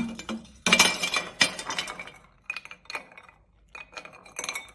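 Ice cubes dropped by hand into a glass pitcher, clinking against the glass and each other: three sharp clinks in the first second and a half, then a run of lighter clinks.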